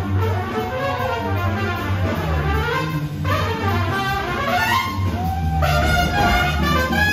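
Live jazz band music with a trumpet playing the lead line in bending, sliding phrases over a steady low bass.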